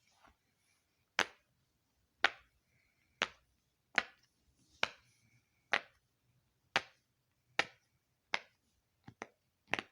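Silicone pop-it fidget toy's bubbles being pressed through from the back one at a time: a short sharp pop about once a second, about a dozen in all, with two quick pops close together near the end.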